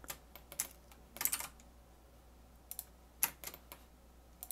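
Scattered keystrokes on a computer keyboard: single taps with a short quick run about a second in, over a faint steady low hum.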